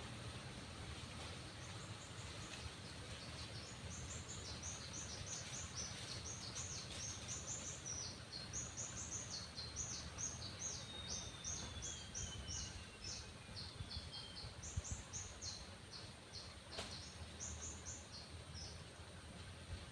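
A bird singing a long, fast run of short high chirps, with one thin falling whistle partway through, over a steady low rumble.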